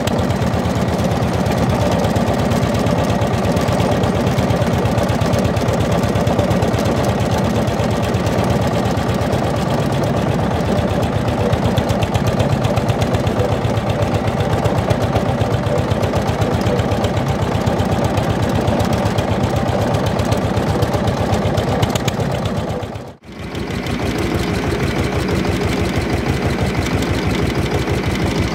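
Homemade tractor's single-cylinder Andoria S320 diesel engine running steadily under way, with an even, rapid beat of exhaust pulses. The sound drops out briefly about three-quarters of the way through, then resumes the same.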